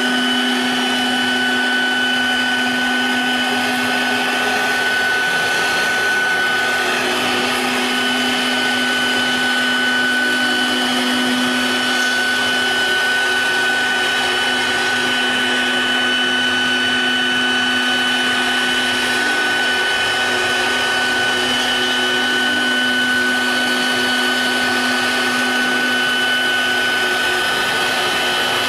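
Spindle motor of a 4-axis CNC router running at constant speed while its bit carves a block of foam: a steady whine made of several fixed tones over a noisy hiss.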